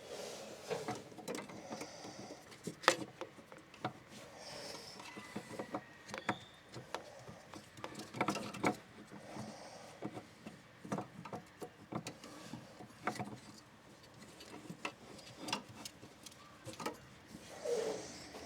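Irregular light clicks and knocks of parts being handled and fitted by hand in a diesel engine bay, most likely the spin-on main diesel filter being threaded on and hand-tightened.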